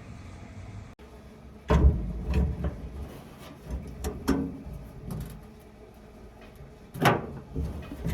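Steel hood of a 1957 Ford Thunderbird being lowered slowly over the engine bay: a handful of clunks and knocks from the hood and its hinges, the loudest two about two seconds in and near the end.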